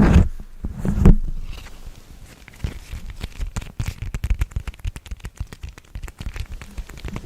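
Close-miked ASMR tapping and rubbing on a textured pad: two heavy, muffled rubbing thumps in the first second or so, then a fast, dense run of light crackly taps.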